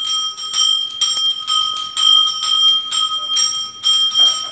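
Temple puja bell rung continuously, struck about three to four times a second, with a steady ringing tone between strokes.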